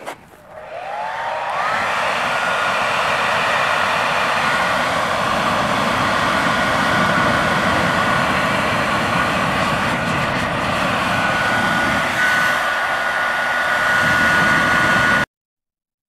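Handheld electric hair dryer switched on, its motor whine rising as it spins up, then running steadily with a loud rush of air as it blows into a wood fire. It stops abruptly near the end.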